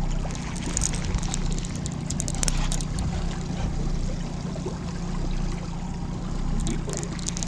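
Outboard motor on a small fishing boat running steadily at trolling speed, a low even hum, with water washing past the hull. A few light high ticks come about a second in and again near the end.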